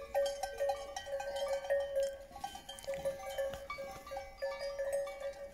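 Bells worn by grazing sheep clinking irregularly, many small bells ringing at different pitches and overlapping.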